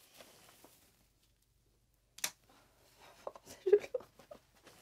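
Quiet small-room handling sounds: one sharp click about two seconds in, then a scatter of soft rustles and light taps, as of someone moving about and handling papers.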